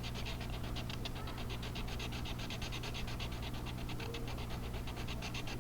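Coloring in a large area of paper by hand with rapid back-and-forth scribbling strokes, an even scratching at about nine strokes a second.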